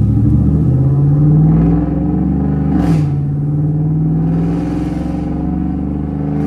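2011 GMC Sierra's 5.3 L V8 exhaust, with long-tube headers, no catalytic converters and a Magnaflow bullet muffler, running hard under acceleration. The engine note climbs, drops sharply about three seconds in as at a gear change, then holds and climbs again.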